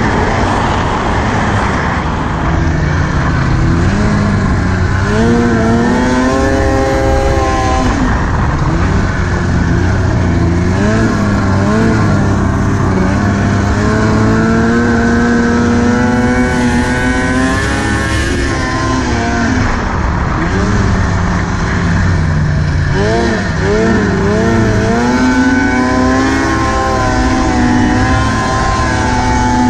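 2002 Arctic Cat ZR500 snowmobile's two-stroke engine running hard through powder snow. Its pitch rises and falls over and over as the throttle is worked, over a steady rushing noise.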